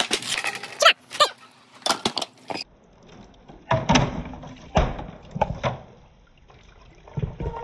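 Marbles and billiard balls rolling and knocking through a bamboo-tube marble run: quick clacks and clatter, then, after an abrupt change, a few heavier, duller knocks of balls striking the bamboo.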